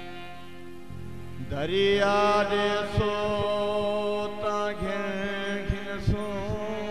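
Music: a male voice slides up about a second and a half in and holds a long wordless note that bends in pitch, over a steady drone, with a few sharp drum strikes.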